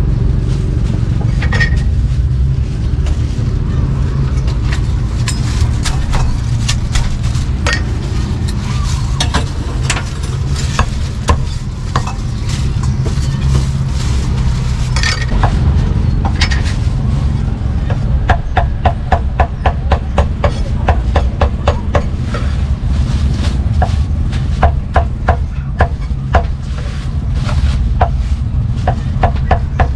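Steel meat cleaver striking a thick round wooden chopping block as meat is chopped: scattered knocks at first, then from about halfway a quick, even run of chops, about three to four a second. A steady low rumble runs underneath.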